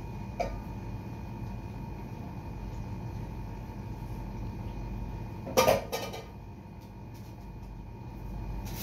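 Steady low room hum with a faint steady tone, a small click near the start, and a brief clatter with a short ringing about five and a half seconds in, the loudest sound here.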